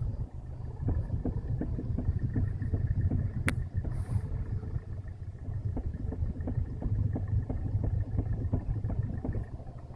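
Repeated knocking from the steering of a pre-facelift Hyundai Solaris hatchback as the wheel is rocked back and forth with the car standing still: several knocks a second over a low steady hum. One sharper click comes about three and a half seconds in.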